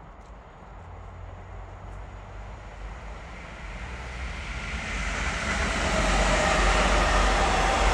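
Czechoslovak Class 460 'Tornádo' electric multiple unit approaching along the track, growing steadily louder over about six seconds, then running loud past with a whine of several steady tones over the rumble of wheels on rail.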